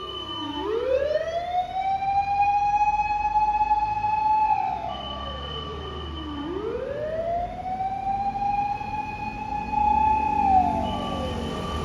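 Fire-truck siren wailing: the pitch rises, holds high for a few seconds, then slowly falls, repeating about every six seconds. A second, steady higher tone sounds during each fall, over a low truck-engine rumble.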